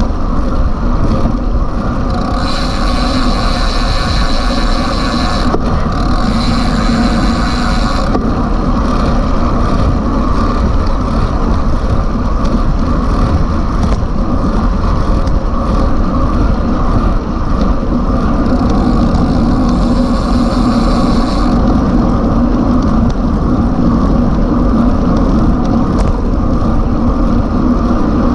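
Steady wind rush on the microphone of a road bike's action camera at about 40 km/h. It grows brighter and hissier for a few seconds twice.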